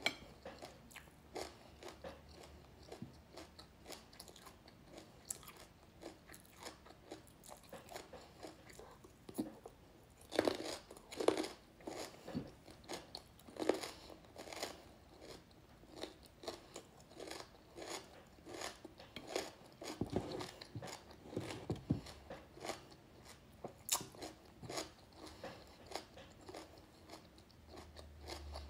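Close-up chewing of crunchy raw vegetables: repeated crisp crunches and bites, loudest in a cluster about ten to fourteen seconds in and again around twenty seconds in.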